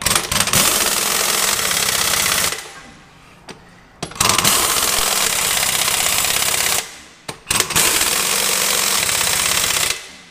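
Pneumatic impact wrench hammering as it runs down truck wheel lug nuts, in three long bursts of about two and a half seconds each with short pauses between.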